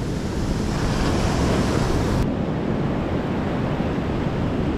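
Surf washing up the beach, a steady rush of breaking waves with wind on the microphone. A little over two seconds in, the high hiss drops away suddenly, leaving a duller rush.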